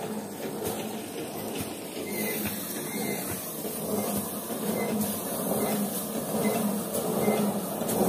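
Mini rice thresher running steadily while paddy bundles are held against its drum to strip the grain. A continuous mechanical hum with a steady low tone, growing louder toward the end.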